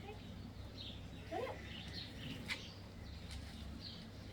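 Faint, scattered bird chirps, with a short rising call about a second and a half in and a single sharp click about two and a half seconds in.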